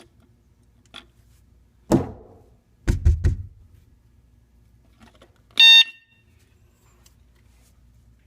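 A faint click, then a thump and a few low knocks as a door-hanging motion alarm is jostled, then one short, shrill electronic beep from the alarm about five and a half seconds in.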